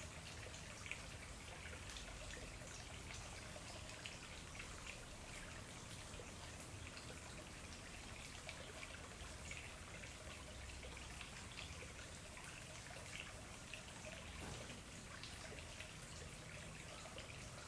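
Faint trickling of a small shallow stream running over stones, with scattered little drips and splashes.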